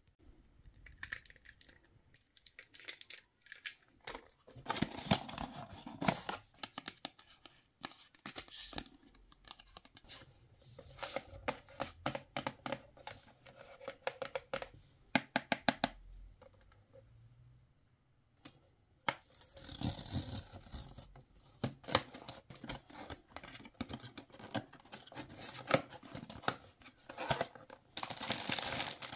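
Close-up handling of a small cardboard blind box and its contents: fingernails clicking and tapping on the card and a plastic figure, with bouts of rustling. Near the end the box flaps are pried open and the foil wrapping inside is crinkled.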